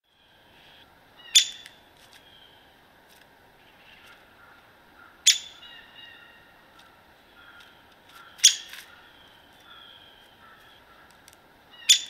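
Downy woodpecker giving four sharp, very short single sounds about three to four seconds apart, over faint chirps of other birds.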